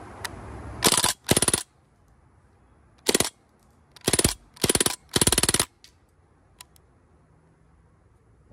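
DPMS Panther Arms AR-15 replica BB air gun, a CO2 blowback rifle, firing full auto in six short bursts of rapid shots: two in quick succession about a second in, then four more between about three and six seconds. A couple of faint clicks follow.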